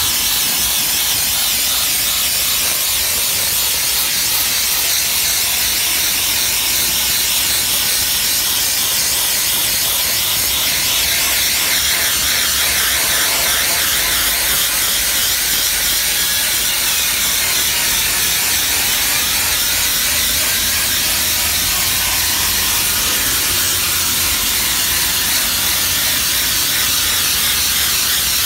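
DOFF superheated steam cleaner's lance jetting steam against algae- and moss-covered brickwork, a steady, loud hiss.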